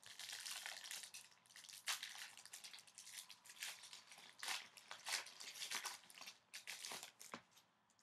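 A foil hockey-card pack wrapper being crinkled and torn open by hand: a quick, irregular run of crackling rustles that stops near the end.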